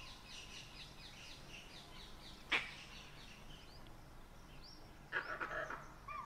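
Wild birds calling in dry forest: a quick run of short, high falling chirps, one sharp loud call about two and a half seconds in, and a brief burst of harsher chattering calls about five seconds in.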